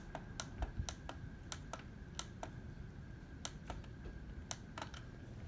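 Plastic buttons on a Sharp digital alarm clock clicking as they are pressed again and again to step the time forward, about three presses a second with a short pause about halfway through.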